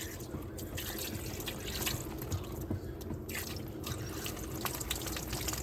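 Electrolux Ecologic 12 kg washing machine in its intermediate spin: water splashing and dribbling in the tub as the turning drum throws water out while it drains, a steady wet patter of many small irregular splashes.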